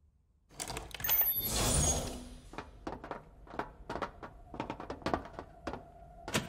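Animated sound effects. About half a second in there is a sudden clunk and a short rush of noise, then a string of sharp knocks at uneven intervals, about two or three a second. A steady hum comes in near the end.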